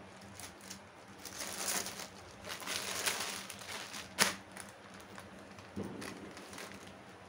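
Clear plastic saree packaging crinkling and rustling as it is handled, with one sharp crackle a little past the middle and a soft thump near the end.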